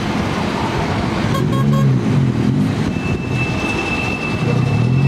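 Blackpool Boat Car 600 tram running past on a curve, its motors and wheels sounding on the rails with a low pitch that rises and falls. About three seconds in, a steady high-pitched wheel squeal starts as the wheels grind round the curve.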